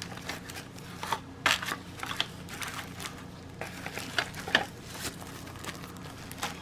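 Packaging of a smart light switch kit being handled: irregular rustling and crinkling with small clicks and taps.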